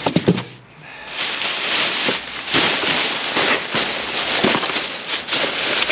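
Rummaging through a pile of discarded junk: plastic, cardboard and other debris rustling, crinkling and clattering in quick, irregular crackles from about a second in.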